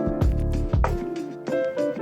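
Background music: sustained chords over a steady beat of low drum thumps.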